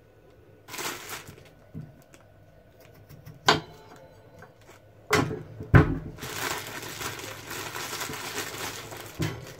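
A knife cuts a potato on a wooden chopping board, with a few sharp knocks of the blade on the board, the loudest about six seconds in. Then a plastic bag of potatoes is handled, crinkling steadily for the last three seconds.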